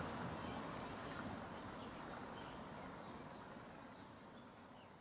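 Outdoor ambience of steady hiss with a few faint, high, short bird chirps, fading out gradually.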